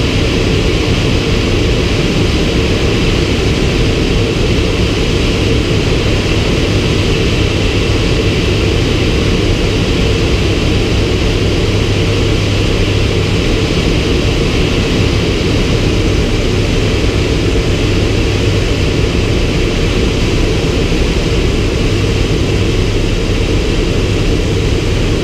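Turbine Thrush spray plane's turboprop engine and propeller running steadily at power, heard from the cockpit: an even drone with a strong low hum under a rushing noise.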